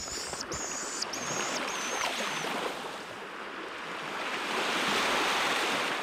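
Surf washing onto a shore, a steady rush that swells about four to five seconds in. A high, thin note repeats in short pieces over the first two seconds or so.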